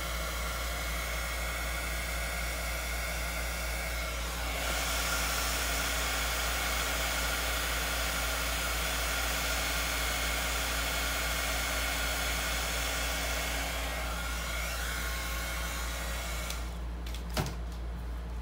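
Handheld hot-air blower running over wet epoxy resin, a steady rushing hiss that gets a little louder about four and a half seconds in. It is switched off near the end, followed by a single short click.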